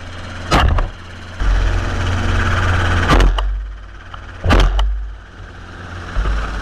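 Helicopter engine and rotor drone, with three gunshots about half a second, three seconds and four and a half seconds in.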